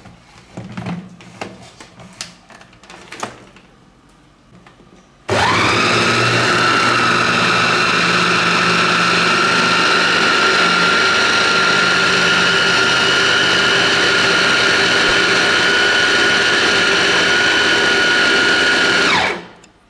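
Plastic clicks and knocks as a food processor's bowl and lid are fitted, then about five seconds in the electric motor starts, spins up at once and runs steadily with a high whine while grinding boiled chicken breast with oatmeal and olive oil. Near the end it is switched off and winds down, its pitch falling.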